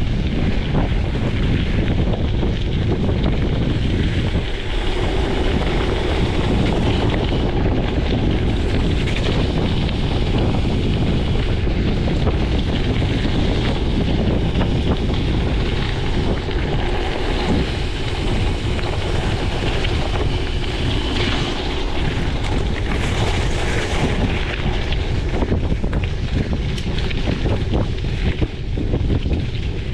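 Steady wind rushing over a chest-mounted GoPro's microphone while riding a gravel bike, a loud, even rumble without a break.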